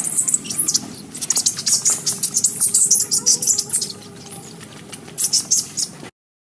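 Dense, rapid high-pitched chirping of birds over a steady low background hum, cutting off suddenly about six seconds in.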